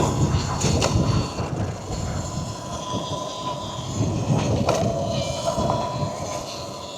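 A bike rolling over a rough dirt trail: uneven rattling and knocking with tyre noise, a few sharp clicks, and a faint steady high tone underneath.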